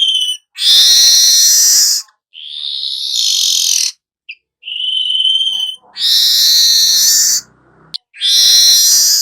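Weaver bird (manyar) song: a run of loud phrases about a second long with short gaps between them. Thin steady whistled notes alternate with harsh, wide buzzing chatters, the 'nyerut' buzz that birdkeepers train their manyar to sing.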